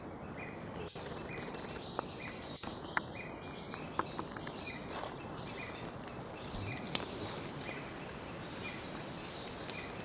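Forest ambience: a steady background hiss with a short, high chirp repeating a little more often than once a second, and a few sharp clicks, the loudest about three and seven seconds in.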